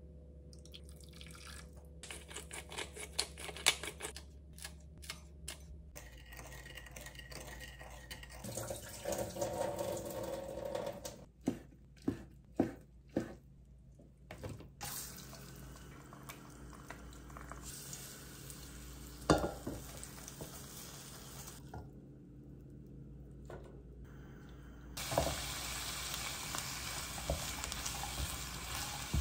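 Home kitchen prep sounds. First a run of quick light clicks from a wooden spoon working in a glass sauce bowl, then a few sharp knife strokes on a plastic cutting board around the middle. Near the end comes a steady sizzle of sliced onions stir-fried with a spatula in a frying pan.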